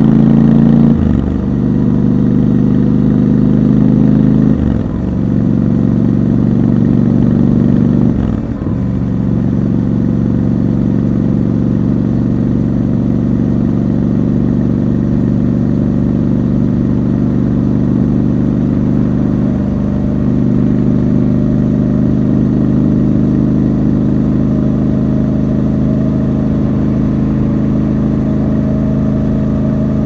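Triumph Scrambler 1200 XC's 1200 cc parallel-twin engine under way, heard raw from the rider's seat. Three short breaks in the engine note in the first nine seconds as it shifts up through the gears, then a steady cruise with the note slowly rising near the end.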